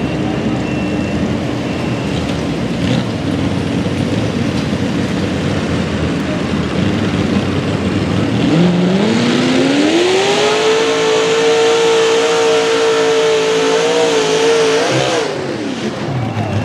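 Mini modified pulling tractor's engine running steadily at the line, then revving up sharply about eight seconds in. It is held at high revs with small wavers as the tractor pulls the sled, and drops off near the end.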